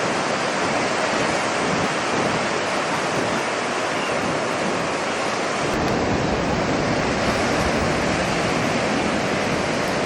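Ocean surf washing ashore, a steady rushing noise, with a deeper rumble joining from about six seconds in.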